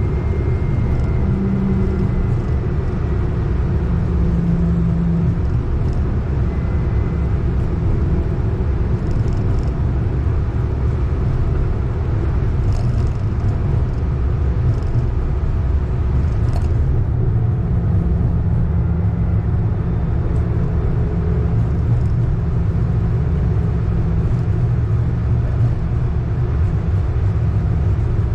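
Siemens S70 streetcar rolling along its track, heard from inside the car: a steady low rumble of wheels and running gear, with a faint low hum that comes and goes.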